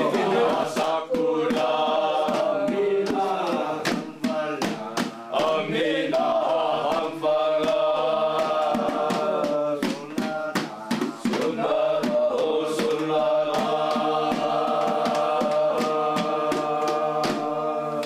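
A group of voices chanting together in long held notes, with sharp percussive hits scattered throughout.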